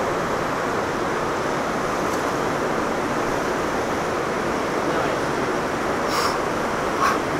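Steady rushing of river water, an even noise throughout. Two brief short sounds come near the end.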